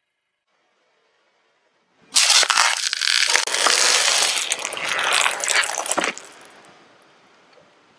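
A car tyre crushing a candy-covered ice cream cone: a loud crackling crunch of cracking candy shells and snapping cone, starting about two seconds in, lasting about four seconds and then fading away.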